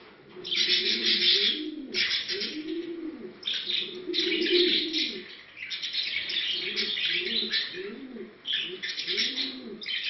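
Pigeons cooing over and over in courtship during pairing, each coo a low rising-and-falling call, one or two a second. A busy chatter of high chirping runs behind the coos.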